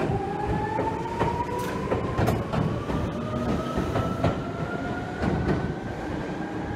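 Yellow Seibu electric commuter train pulling away, its traction motors whining in a tone that rises steadily as it gathers speed, over a rumble with irregular clicks and clacks of the wheels on the rail joints.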